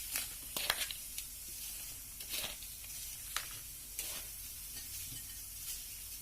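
Chopped chili peppers being tossed and mixed with salt in a bowl: a steady crisp rustle with a sharp, wet stroke every second or so.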